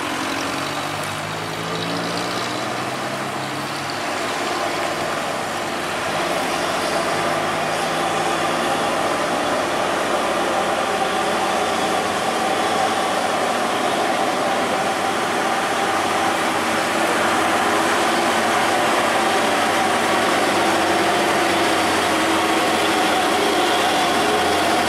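Heavy diesel truck engines working under load as the trucks crawl up a steep hairpin climb, a steady engine drone that grows gradually louder as a Nissan Diesel cargo truck comes close near the end.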